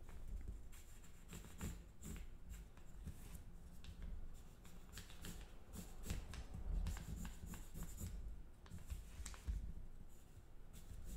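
Pencil drawing lines on folded paper in short, irregular scratchy strokes, with some rustling as the paper is shifted and turned.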